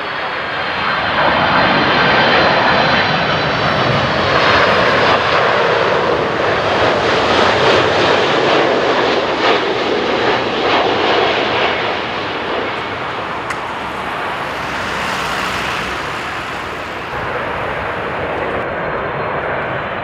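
A twin-engine jet airliner on final approach passing close by: engine noise with a high fan whine, swelling about a second in, loudest for around ten seconds, then easing off as it moves away.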